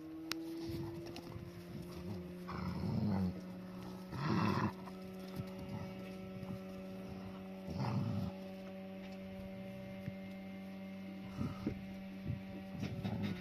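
Dogs play-fighting, with short growls and barks about five times, over a steady low hum.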